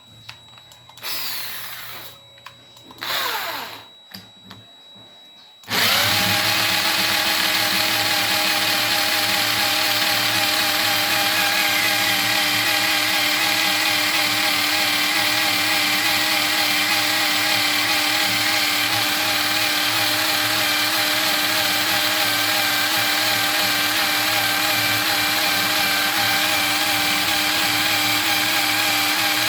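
Electric power tool of the drill type, given two short whirring runs and then switched on and left running steadily with an even hum.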